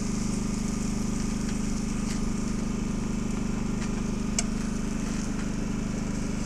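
An engine running steadily at idle: a low, even hum. A few light metal clicks come through it, the sharpest about four seconds in, as burgers are lifted off the grill with a spatula.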